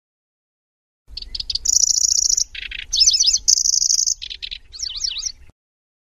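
Pallas's grasshopper warbler singing a burst of song that starts about a second in: quick clicking notes, two long buzzing trills and fast chattering, warbled phrases. It stops abruptly near the end.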